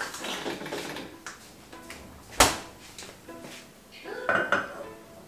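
Kitchen handling sounds: clinks and rustles, then a single sharp knock about two seconds in. Near the end a stainless-steel pot is set down on a gas hob's burner grate with a ringing metallic clank.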